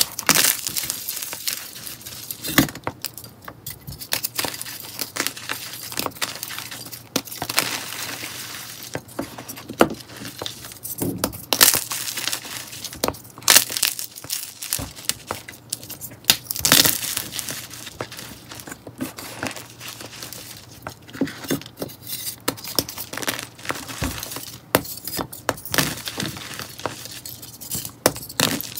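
Hands crushing and crumbling dried, powder-coated soap bars: a continuous run of irregular crisp crunches and crackles, with a few sharper snaps standing out.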